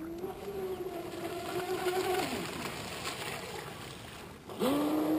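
Aquacraft Motley Crew RC boat's motor and GrimRacer copper-beryllium propeller whining as it is throttled up. It holds for about two seconds, then eases off, and just before the end it is throttled up sharply again into a steady, louder whine, with the hiss of water under the hull.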